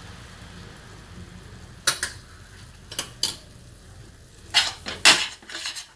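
A metal spoon stirring a thick sesame-jaggery burfi mixture in a stainless steel pan, scraping and knocking against the metal. There are a few sharp clicks about two and three seconds in, then a louder run of scrapes near the end. The mixture is close to done, rolling together and coming away from the pan.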